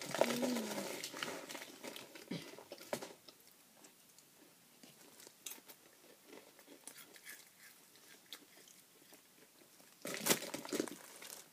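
Close-up chewing and crunching of Goldfish crackers with wet mouth clicks. It is loudest in the first second and again about ten seconds in, with faint scattered clicks in between.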